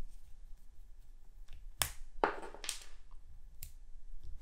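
Button inserts being pushed out of a RhinoShield CrashGuard NX plastic bumper frame: soft handling scrapes with a few short sharp clicks as the buttons pop free, the first about two seconds in.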